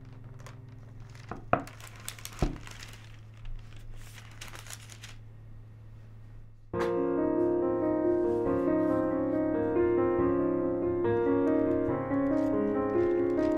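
Crinkling handling noise and two sharp knocks over a low steady hum, then piano music comes in about seven seconds in and carries on.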